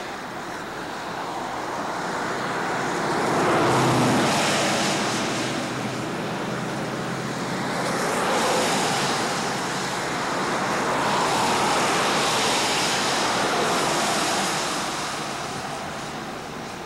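Traffic passing on a wet highway, tyres hissing on the rain-soaked pavement. The hiss swells and fades three times as vehicles go by, the first with a low rumble.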